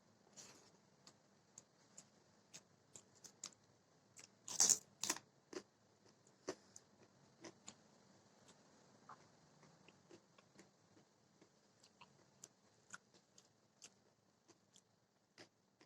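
Faint close-up eating sounds: scattered crunches and mouth clicks of someone chewing, with a louder cluster of crunches about four and a half seconds in.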